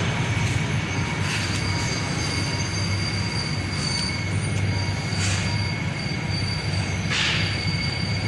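Nissan Juke engine running steadily at idle after repair of a misfire on cylinder 2, with no missing now. A steady high whine sits over the engine sound, and three short hissing swells come and go.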